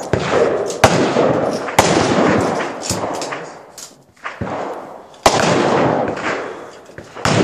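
Rifle shots on a shooting range: four sharp reports at uneven spacing, each ringing on for about a second. The loudest come about a second in and just past five seconds.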